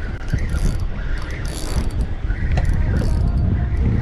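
Spinning fishing reel being wound in, its gears whirring and clicking in short bursts, over heavy wind rumble on the microphone.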